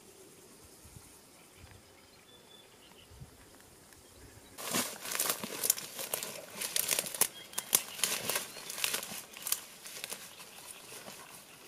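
Footsteps swishing and crunching through tall dry grass and weeds, an irregular rustling that starts about four and a half seconds in, after faint outdoor quiet.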